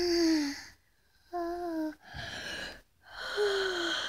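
A person's voice making short breathy, squeaky vocal sound effects: four quick cries and gasps, the last one sliding down in pitch.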